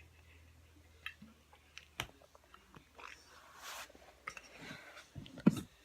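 Faint, scattered clicks and soft rustling, with one sharper click about two seconds in and a couple of low thumps near the end.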